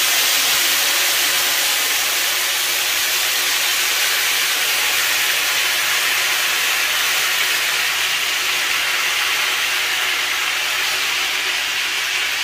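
Freshly added spiced plantain pieces deep-frying in hot oil in a wok: a loud, steady sizzle as the moisture boils off, easing a little toward the end.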